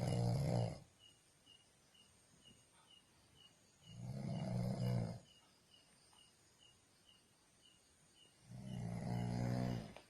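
A person snoring: three snores, each about a second long and roughly four seconds apart. A faint high chirp repeats about four times a second behind them.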